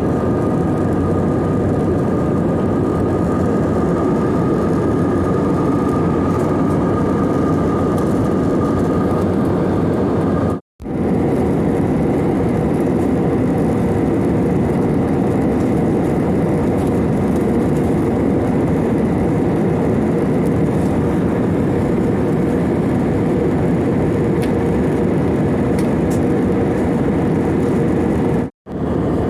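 Steady airplane noise in flight: a dense, even rush of engine and air with a faint high hum on top. It breaks off into silence for an instant twice, about eleven seconds in and near the end.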